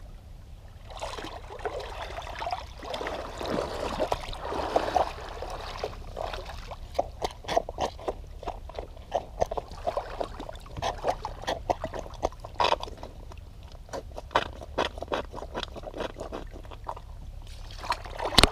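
Shallow creek water splashing around feet in soaked DVS Enduro Heir skate shoes as they step through it, then, from about six seconds in, a run of quick, close wet clicks and squelches as a waterlogged shoe shifts in the water.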